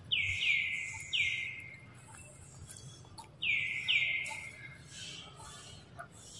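A bird calling in short, quickly falling notes: three in the first second, then two more about three seconds later.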